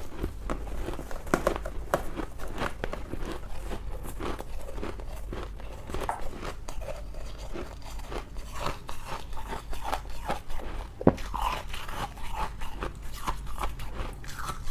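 Close-up crunching of thin ice being bitten and chewed: a dense, irregular run of sharp crunches, with one louder, sharper snap about three-quarters of the way through.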